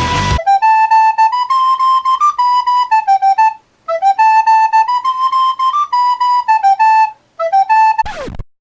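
A solo flute-like wind instrument plays a short melody of clear, separate notes, then repeats the same phrase. Near the end comes a quick downward sweep in pitch.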